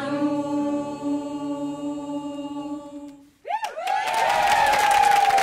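A mixed group choir holds the final chord of its song, fading out over about three seconds. After a brief silence, the singers break into cheers and applause about three and a half seconds in.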